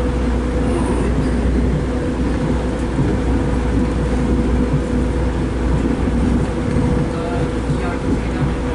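Inside a diesel passenger train carriage running at speed: a steady low rumble of wheels on rail with an even hum.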